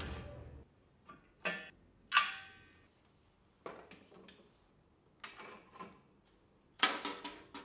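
Light metallic clicks and clanks from the steel welding cart being handled: the toggle latch on the cylinder-retaining bar being worked, then cables knocked against the flat-bar brackets. There are about eight separate strikes with quiet gaps between them. One about two seconds in rings briefly, and the loudest comes near the end.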